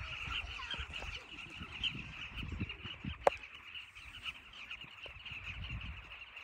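A large flock of carmine bee-eaters calling together: a dense, continuous chatter of many short calls. A low rumble runs underneath, and there is a single sharp click a little past three seconds in.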